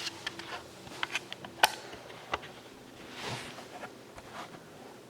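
A few scattered light clicks and taps, the sharpest about a second and a half in, with soft rustling over faint room noise.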